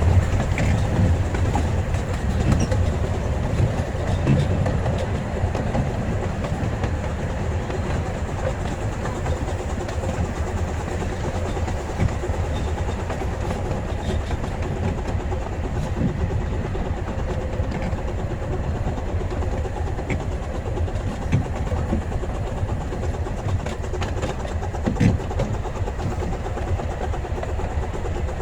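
Miniature 15-inch-gauge steam railway train heard while riding, its wheels rumbling steadily on the track with occasional clicks over the rail joints.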